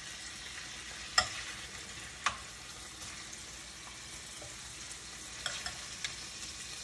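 Steady sizzle of the roasting pan with its drippings heating on a lit gas burner. A few light clicks of the serving utensil against the pan and platter as chicken and vegetables are moved, about one and two seconds in and a short run near the end.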